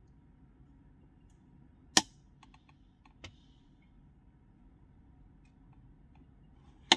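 Sharp clicks over a faint low hum: a loud one about two seconds in, a fainter one a second later, and another loud one near the end.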